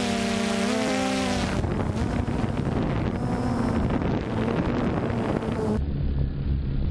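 DJI Phantom 2 quadcopter's motors and propellers whirring, with several pitches shifting as the motors change speed, mixed with wind buffeting the microphone of the onboard GoPro.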